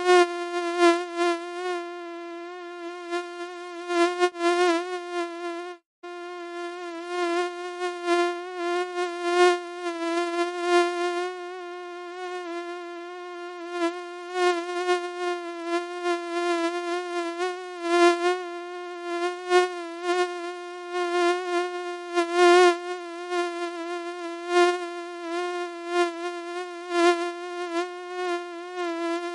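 Mosquito wing whine: a steady, high buzz that wavers slightly in pitch and swells and fades in loudness, with a brief break about six seconds in.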